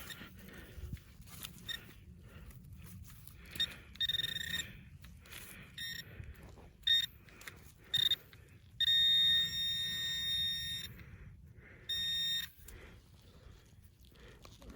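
Metal detecting pinpointer probe sounding as it closes in on a metal target in the dirt: several short beeps on one fixed high tone, then a steady tone of about two seconds, then one more short beep. Soft scraping of soil between the beeps.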